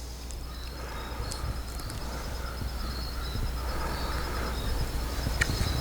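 Outdoor insects, likely crickets, trilling steadily: a rapid pulsing high chirp that runs on without a break, over a faint low steady hum.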